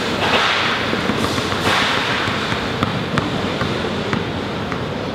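Basketball being dribbled on a street, its bounces as sharp knocks about every half second to a second, over a steady city background hum. Two short rushes of noise stand out in the first two and a half seconds.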